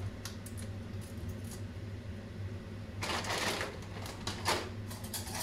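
Plastic packet crinkling in short rustles about three seconds in and again near the end, over a steady low hum.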